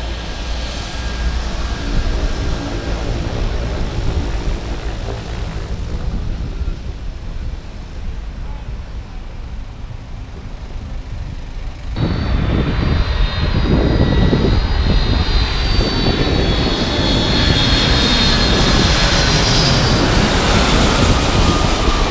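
A twin-engine jet airliner on low final approach overhead. Its engines' sound jumps in suddenly about halfway, loud, with a high whine and tones that slowly fall in pitch as it comes nearer. The first half is quieter.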